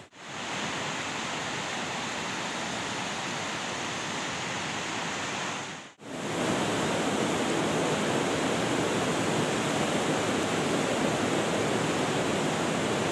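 Steady rushing noise, like running water, with no distinct events. It drops out briefly about six seconds in and comes back a little louder.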